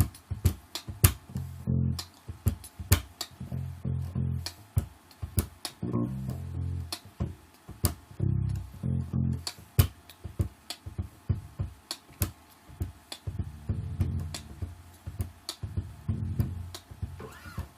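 Electric bass played as a drum: muted strings struck percussively, giving low thumps on the root note F in the manner of a kick drum, with sharp clicky hits between them in a rhythmic groove.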